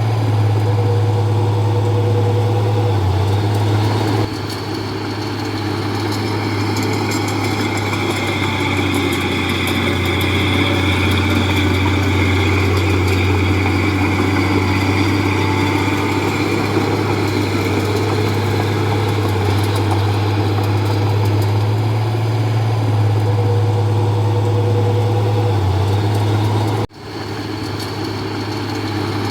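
Komatsu D31P bulldozer's diesel engine running steadily with a deep hum and a fainter high whine over it. The sound changes abruptly about four seconds in and near the end.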